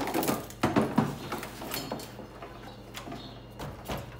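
Plastic bumper trim and clips being handled and worked loose on a car's front end: a loud knock at the start, a cluster of clicks and clatters about a second in, then lighter scattered clicks, over a steady low hum.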